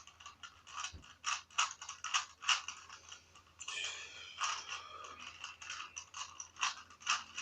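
Rubik's Cube layers being turned quickly by hand: a rapid, irregular series of plastic clicks and scrapes.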